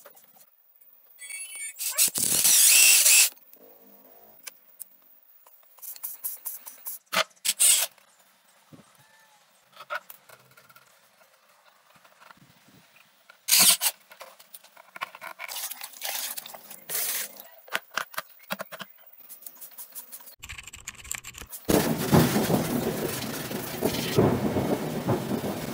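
Handling noises of a homemade bicycle-pump car washer being assembled: clicks, scrapes and several short, loud bursts of hiss. About 22 seconds in, a steady spray of water from the washer starts and splashes onto wet ground.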